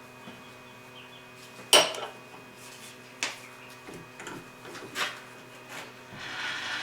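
Metal blocks and machinist's parallels clinking and knocking together as they are handled and set up. There are a few sharp metallic knocks, the loudest about two seconds in, over a steady shop hum, and a short rushing noise near the end.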